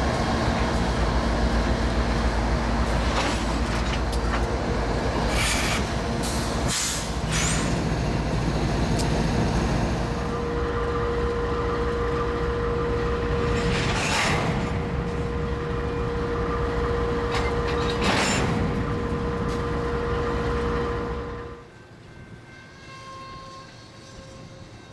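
Freight diesel locomotives running close by with a heavy steady rumble, a steady whine in the middle, and about five short sharp noises from the train. Near the end the sound drops to a much quieter rail-yard background.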